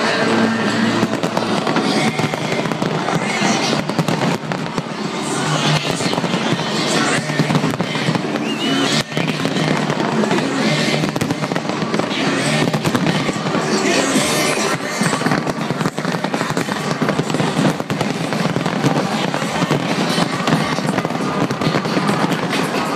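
A big fireworks display going off without a break: dense, rapid bangs and crackles layered over music played through loudspeakers, with crowd voices underneath.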